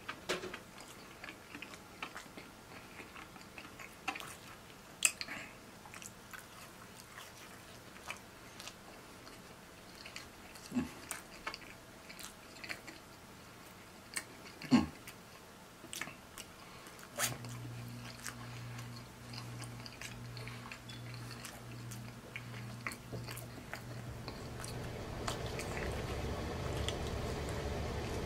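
Close-miked mouth sounds of a man chewing and biting into pepperoni pizza: soft wet clicks and smacks, with a few sharper, louder bites. A low steady hum comes in about two-thirds of the way through, and a rushing noise builds near the end.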